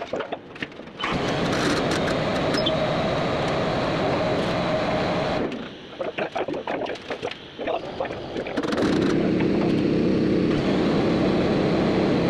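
A motor runs steadily with a held hum, stops about five and a half seconds in for a few seconds of clicks and knocks, then runs again at a lower pitch.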